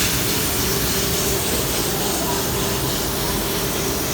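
MSS M7-1300 brush relief-sanding machine running steadily, its abrasive brush heads working lacquered bed parts between finish coats: a constant dense rushing noise with a steady hum through it.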